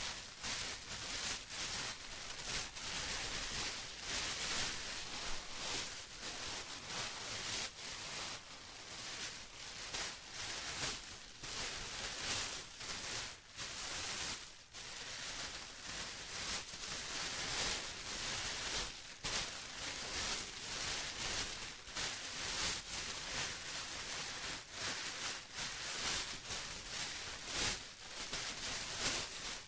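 Plastic rustling and crinkling as it is handled, in a continuous run of short, irregular crackling strokes with brief pauses.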